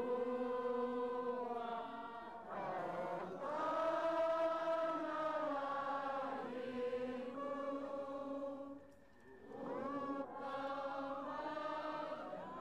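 A crowd of voices singing a slow chant together, in long held notes that slide gently between pitches, with a short break about nine seconds in.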